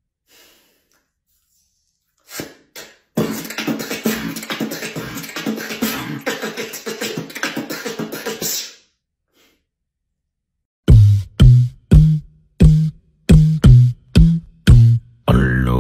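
Beatboxing: after a near-silent start and a couple of clicks, a few seconds of dense crackling. Then, after a pause, a run of deep kick-drum beats about two a second, with a voiced note coming in near the end.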